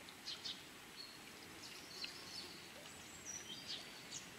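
Small birds chirping and whistling faintly over steady outdoor background hiss: a couple of short high chirps shortly after the start, then several thin whistled notes, some sliding down in pitch, in the second half.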